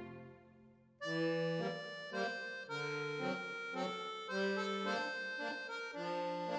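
Background music: the previous piece fades out, and about a second in a new piece starts, with held chords that change every half second or so.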